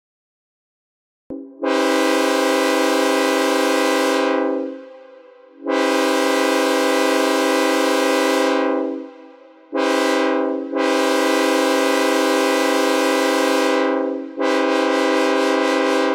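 Synthesized Nathan K5HL five-chime locomotive air horn sounding a steady multi-note chord in a long, long, short, long pattern, the grade-crossing signal, then breaking into rapid short blasts near the end. Each blast starts and stops abruptly, and the first two fade out slowly.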